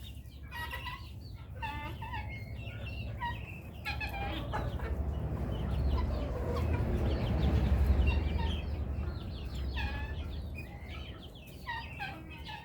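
Chickens clucking in a string of short calls. A low rumbling noise swells through the middle and fades again.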